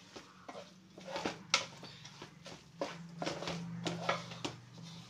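A spatula scraping and knocking against a metal pot while egg, chicken and vegetables are stir-fried together: an irregular run of clinks and scrapes over a low steady hum.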